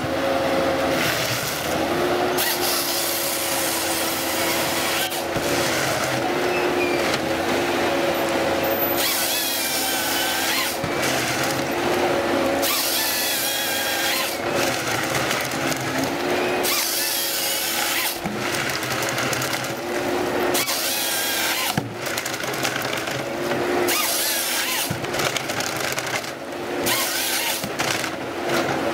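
Forestry harvester's diesel engine running steadily under hydraulic load, with its harvester head repeatedly feeding stems through and cross-cutting them with its chain saw: bursts of rasping saw noise every few seconds over the engine hum.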